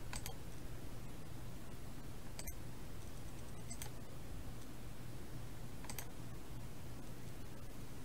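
Quiet room tone with a low steady hum and a few faint, scattered clicks.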